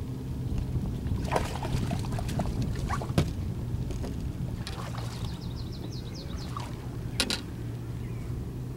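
Lake water splashing and sloshing at the boat's side as a hooked bass is pulled from the water by hand, with a few knocks, over a steady low motor hum.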